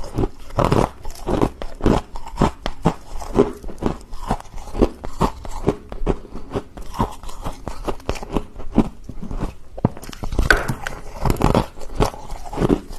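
Crunchy chewing of freezer frost: a steady run of crisp crunches, several a second.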